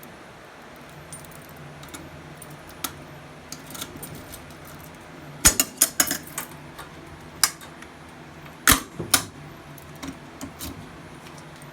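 Keys jangling with a series of sharp clicks and snaps as fire alarm pull stations, a Notifier BNG-1 and an FCI MS2, are unlocked and reset with a key. The loudest clicks come in two quick clusters, about halfway through and again about a second and a half later.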